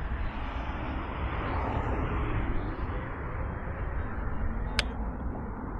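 Steady rushing wind and tyre rumble from riding a PWR Roam electric scooter at speed, buffeting the handlebar-mounted camera's microphone. A single sharp click comes about five seconds in.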